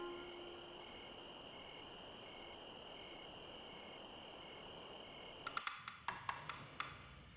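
Crickets chirping: one steady high trill and a second, evenly pulsing chirp, over faint hiss. Near the end the chirping stops and a quick, irregular run of about eight sharp taps follows.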